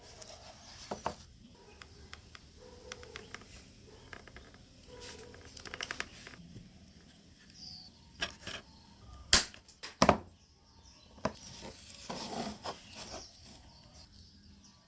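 Scattered light clicks and taps of small objects being handled on a work surface, with two sharp knocks about nine and ten seconds in.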